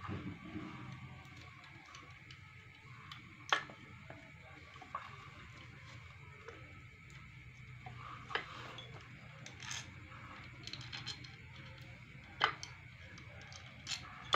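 Metal parts of a water pump being handled and fitted by hand: the pump's metal housing and loose bolts give scattered clinks and knocks, a handful of sharp ones spread through, over a low steady hum.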